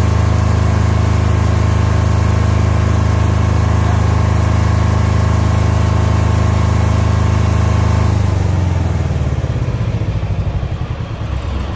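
Silent-type 15 kVA diesel generator running steadily at a constant speed. About eight seconds in it is shut down, and the engine runs down in slowing, uneven chugs.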